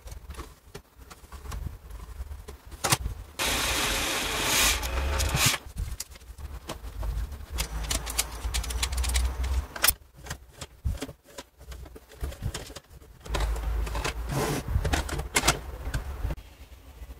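Handling noise from a stripped-down DVD drive's plastic tray and metal frame, worked by gloved hands: scattered clicks and rattles, with two stretches of scraping or rubbing noise, one about three and a half seconds in and one near the end.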